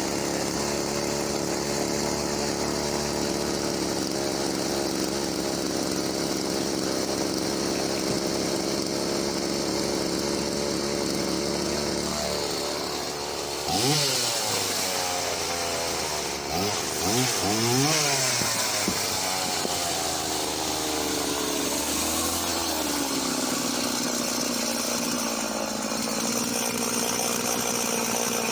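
Husqvarna Rancher 50 two-stroke chainsaw idling steadily. About halfway through it is revved up and down several times, held at high revs for a few seconds, then drops back to idle.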